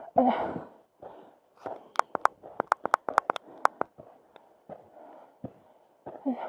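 A climber breathing hard as she hauls herself up, with a quick run of about a dozen sharp clicks and clinks between about two and four seconds in.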